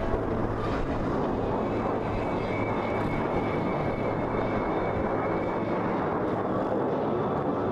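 Jet engine noise from a formation of F-16 Fighting Falcons flying overhead: a steady, dense roar with a faint high whine in the middle.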